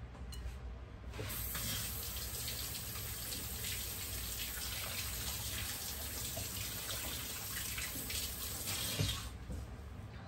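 Water running from a kitchen tap into a sink, turned on about a second in and shut off near the end, with a soft knock just before it stops.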